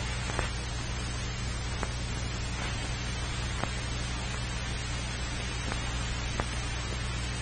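Worn old film soundtrack with no narration: steady hiss and mains hum, broken by a few faint, irregular clicks.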